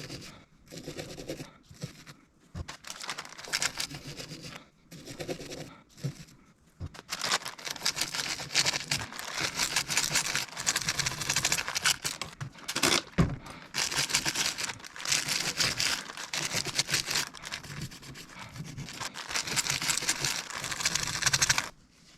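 A wire brush scrubbing the old metal faceplate of a Proto ratchet clean: a few short spells of scratchy strokes at first, then quick, continuous scrubbing from about seven seconds in until just before the end.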